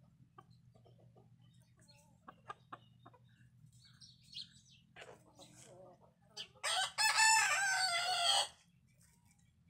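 A rooster crows once, loudly, for about two seconds near the end, after a few soft clucks and faint ticks from the chickens in the yard.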